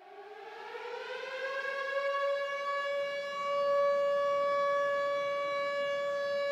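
A siren-like tone winding up: its pitch glides upward over the first two seconds, then holds steady while the sound swells in loudness.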